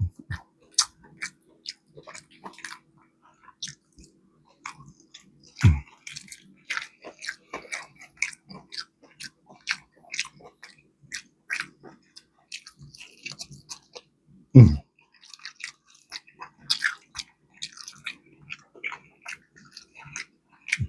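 Close-miked chewing and biting into crispy fried chicken wings, a steady run of small crunchy crackles, with a couple of low thumps, the loudest about two-thirds of the way through.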